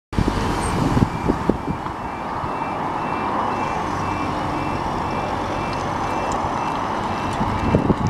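Railway level crossing warning alarm sounding a rapid run of short, repeated electronic tones as the crossing starts to close and the barriers begin to lower. Under it is the steady hum of road traffic, with a few low thumps.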